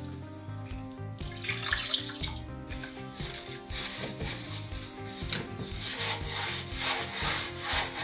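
Repeated brush-scrubbing strokes on a diesel-soaked inlet manifold from a 4.4 TDV8 diesel engine, a wet rubbing scrape as the softened carbon sludge is worked loose. Background music plays under it.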